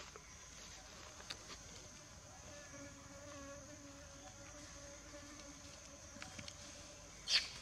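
A steady high-pitched insect hum, with a flying insect buzzing past for about three seconds in the middle. A short, sharp sound near the end is the loudest moment.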